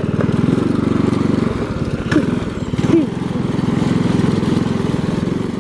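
Small gas engine on a converted Power Wheels ride-on Mustang running steadily as the car is driven, with rapid, even firing pulses.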